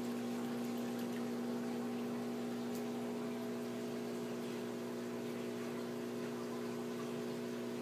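Aquarium filter pump humming steadily, with a faint even wash of moving water.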